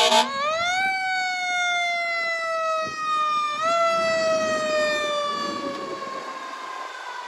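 Automatic fire alarm siren sounding after a sharp click. It winds up quickly to a high wail over about a second, then slowly sinks in pitch. About three and a half seconds in it is pushed up again, and then it slowly sinks once more.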